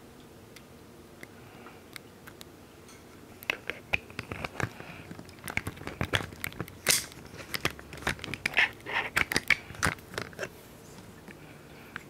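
Irregular crackling, clicking and crinkling handling noise, starting about three and a half seconds in and stopping about ten seconds in, over a faint steady background hum.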